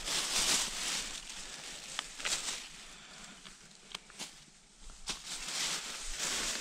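A plastic bag rustling at the start, then dry leaf litter rustling and a few sharp clicks as honey mushrooms are cut with a knife and handled.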